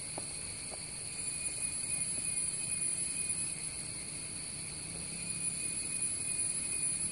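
Steady high-pitched insect chorus in the forest, holding several unchanging tones, over a low rumble, with a couple of faint clicks about a second in.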